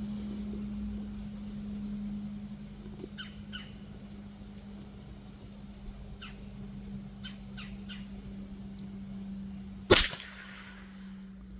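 A single .22 LR rifle shot from a Rock Island M14Y about ten seconds in, a sharp crack over a steady insect buzz. A few short bird chirps come before it.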